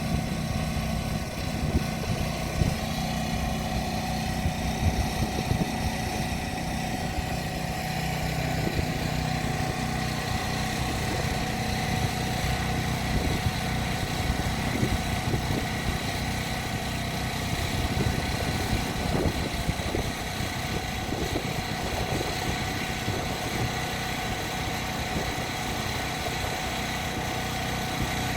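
An engine running steadily at a constant speed, with wind buffeting the microphone.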